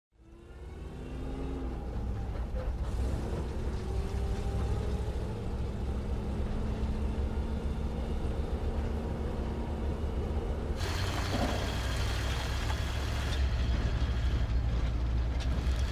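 Armored truck driving, with a steady low engine and road rumble heard from inside the vehicle. It fades in at the start, and from about eleven seconds in the road noise gets noticeably louder and brighter.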